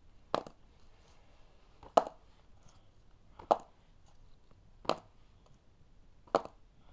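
A marker being flipped and landing, five sharp knocks about a second and a half apart.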